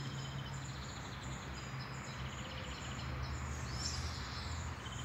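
Quiet outdoor ambience: a steady low hum with faint bird chirps now and then.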